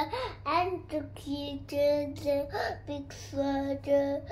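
A young child's voice singing in a sing-song way, with short syllables held on steady notes.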